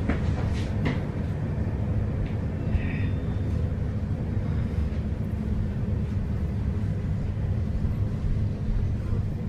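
Inside an electric commuter train running along a station platform: a steady low rumble of the wheels and running gear. There are a few sharp clicks near the start and a brief faint high squeal about three seconds in.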